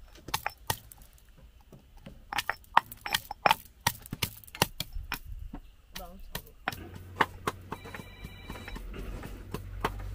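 Stone pestle pounding garlic in a stone mortar: a run of sharp, irregular knocks. About two-thirds of the way through a low steady hum comes in, with more taps over it.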